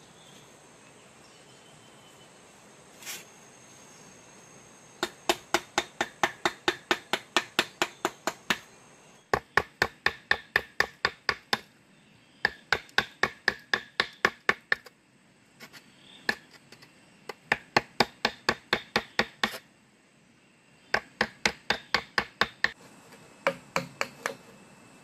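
A hand-held rock hammering a flat stone blade into a green bamboo pole to cut through it. The sharp knocks come about four a second, in runs of two to three seconds with short pauses between.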